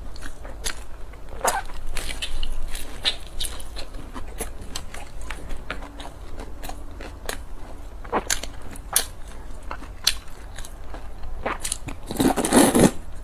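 Close-miked eating: crisp crunches and chewing of a fried pancake, with many small sharp mouth clicks. About twelve seconds in, a loud slurp of noodles.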